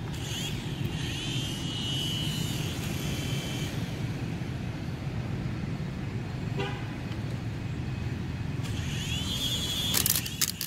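A cheap mini RC helicopter's small electric rotor motor spins up twice in a rising whine that settles into a steady high whine. The first lasts about three seconds and the second comes near the end. Just after the second, a few sharp clacks are heard as the helicopter skitters on the stone paving. Steady low background rumble.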